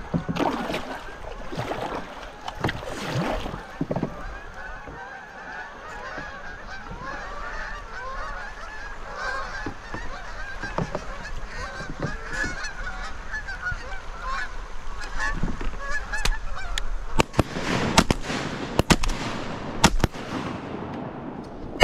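A flock of Canada geese honking as it flies over, many calls overlapping. Several shotgun shots go off near the end, fired at the flock.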